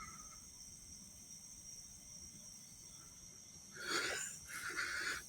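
A person's heavy breathing close to the microphone: quiet at first, then from about four seconds in a run of loud, noisy breaths in and out, every half-second or so.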